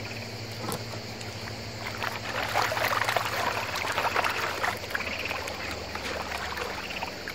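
Water splashing and sloshing as a plastic gold pan full of gravel is shaken and swirled just under the surface of a shallow river, washing the gravel down to concentrate the gold. Loudest about halfway through.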